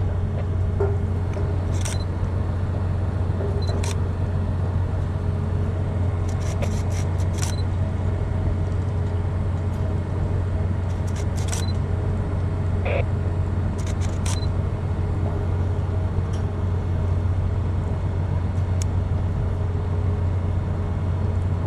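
Steady low hum of a bulk carrier's machinery heard on deck, with scattered faint clicks and metallic knocks every second or two.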